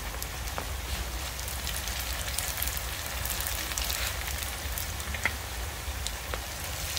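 Vegetarian spring rolls deep-frying in hot oil: a steady sizzle full of fine crackles, with a sharper pop about five seconds in.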